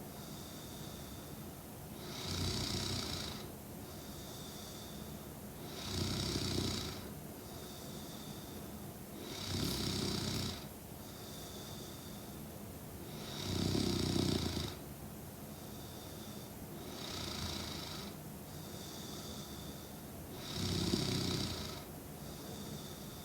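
A young woman snoring in her sleep: six snores, one about every three and a half to four seconds, each lasting about a second, with a faint high whistling tone on the breath between them.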